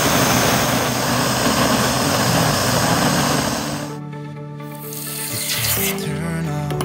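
Gas soldering torch hissing steadily on a block as it melts silver wire into a ball, cutting off about four seconds in. Near the end comes a hiss as the red-hot silver is quenched in water. Background music plays throughout.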